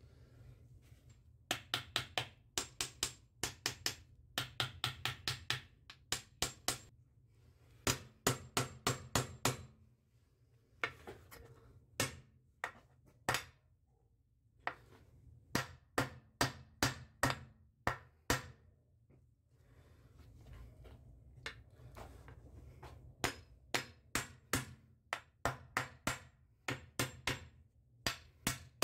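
Hammer blows driving a new suspension bushing into a trailing arm's eye: sharp strikes in quick runs of about four a second, with short pauses between runs.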